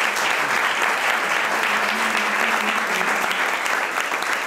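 A small group clapping their hands in sustained applause, steady throughout, with a voice or two faintly underneath.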